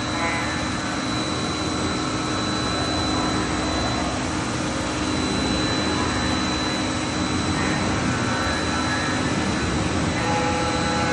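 Steady machinery noise: a continuous whooshing hum with a constant high-pitched whine running over it.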